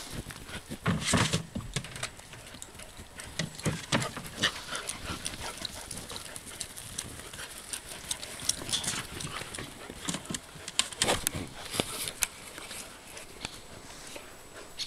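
Alaskan malamute puppies playing, with irregular clicks, knocks and scuffles and a few louder bursts about a second in, around four seconds and around eleven seconds.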